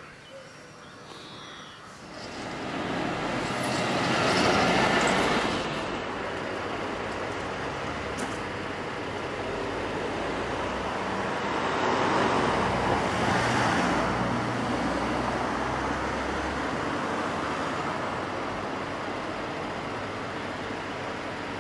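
Street traffic: motor vehicles passing, the rushing noise swelling loudest about four seconds in and again around twelve to fourteen seconds, with a low engine rumble in between.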